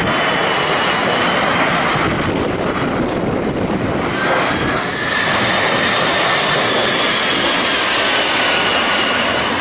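Airplane engines running loud and steady on a landing approach, with faint whining tones that drift slowly in pitch over a dense rushing noise.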